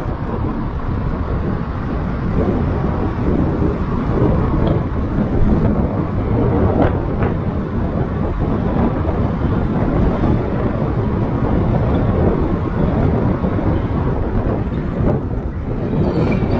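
Steady low rumble of tyre and wind noise from a Kia K3 driving along, with wind buffeting the microphone.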